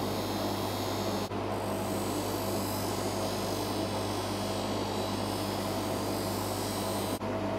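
Bench polishing motor running steadily with a constant hum and hiss as a watch case is buffed against its spinning wheel. The sound breaks off for an instant twice, about a second in and near the end.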